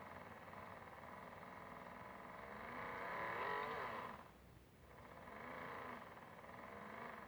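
Small electric motor of a modified Miele W1 toy washing machine spinning its drum, with a wavering pitch. It grows louder about three seconds in, drops away briefly, then picks up again.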